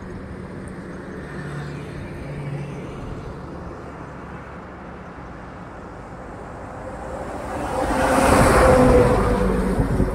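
Heavy goods trucks running along a highway, with one passing close by: a swelling rush of engine and tyre noise that builds over the last few seconds, peaks about a second before the end and begins to fade.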